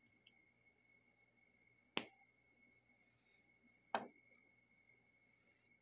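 Two sharp clicks about two seconds apart, from small craft items being handled and set down on a tabletop, over a faint steady high whine.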